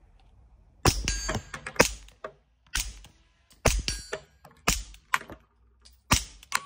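Suppressed pistol firing about six shots at roughly one a second, each a sharp report, with brief high metallic pings ringing after some of the shots.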